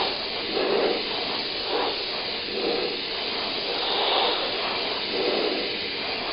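Aerosol can of CA glue accelerator (kicker) spraying in one continuous hiss, misted onto a glued seam to set the CA glue.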